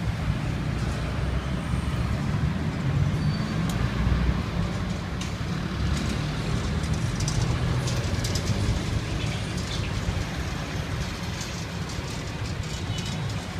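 Steady road traffic noise from a busy city street: a continuous low rumble of passing vehicles, with a few faint clicks in the middle.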